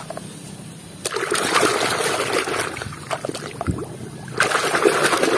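Water splashing and sloshing in a plastic basin as a hand scrubs a muddy toy bus under the surface. It starts about a second in, eases briefly past the middle, and picks up again near the end.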